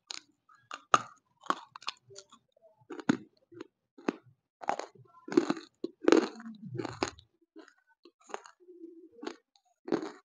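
Close-miked biting and chewing of dry, crumbly white chunks: sharp, irregular crunches about every half-second to second, loudest about six seconds in.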